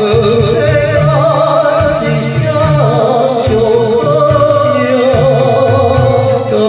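Music from a Taiwanese-language pop song: a melody line with vibrato over a steady, pulsing bass beat.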